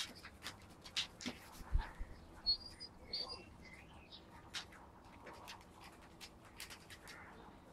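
Four-week-old husky puppies moving about on a wooden floor: scattered light clicks of claws and paws, with two short high puppy squeaks about two and a half and three seconds in.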